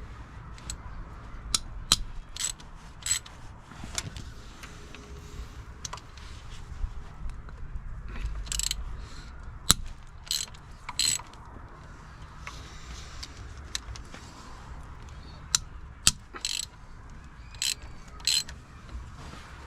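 Hand ratchet clicking and wrenches clinking on metal as the 12mm bolts holding a Nissan 300ZX's water pump are undone, in scattered sharp clicks and short bursts.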